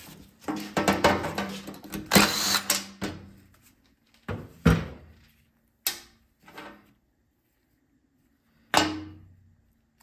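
Small metal carburetor parts clattering and knocking on a metal workbench as the carburetor is taken apart and its float bowl is set down. There is a burst of handling and rattling in the first three seconds, loudest about two seconds in, then a few single knocks spread through the rest.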